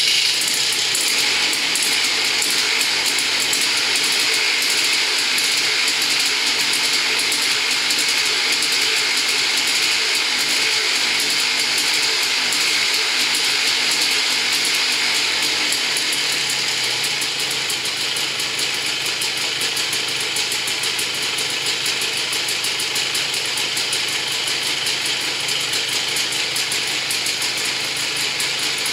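Polaris Sportsman 400's liquid-cooled two-stroke engine running at idle just after starting, freshly rebuilt with a .040" over Wiseco top end. The note is steady, settling slightly lower a little past halfway.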